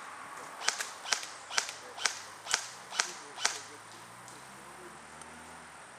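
Airsoft gun firing about seven sharp semi-automatic shots, roughly two a second, then stopping.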